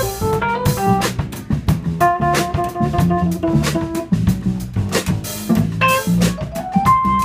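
A small jazz band playing live: an electric guitar plays a melody of single notes over upright bass walking in the low register, a drum kit with regular cymbal and snare strikes, and keyboard.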